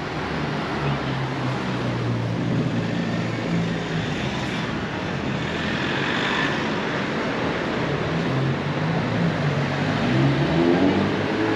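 Road traffic on a town street: vehicle engines running with a steady low hum and tyre noise, a van driving close past near the end.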